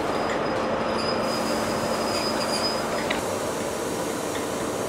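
GWR High Speed Train (Mark 3 coaches, Class 43 diesel power car) rolling slowly along a platform under braking, with a thin high brake squeal. The squeal and rolling noise end about three seconds in as the train comes to a stand.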